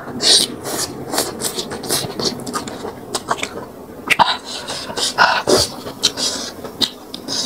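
Close-miked eating sounds: chewing rice noodles and fresh raw vegetables, with many short wet clicks and crunches and a few louder hissing mouth noises.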